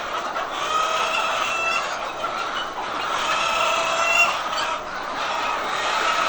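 A flock of laying hens clucking and calling over one another in a continuous din, with a few longer drawn-out calls standing out.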